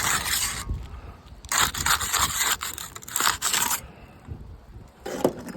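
A roof shingle scraping and rubbing against the roof as it is pried and pulled by hand: a short scrape, a longer stretch of about two seconds, then another short scrape near the end. The shingle will not come free, stuck fast to the roof with all its nails already out.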